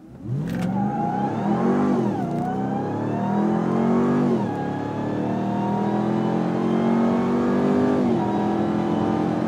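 A 2022 Ram TRX's supercharged 6.2-litre Hemi V8 at full throttle from a standstill, heard from inside the cab: the revs climb hard and drop back at three quick upshifts as the truck accelerates. All four tires squeal on the wet road at the launch.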